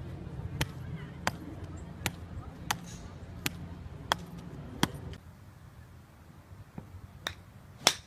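Golf club heads striking golf balls one after another, a sharp click about every two-thirds of a second, as a row of lined-up balls is hit in quick succession. After a drop in the background about five seconds in, two more club-on-ball strikes come near the end, the second the loudest.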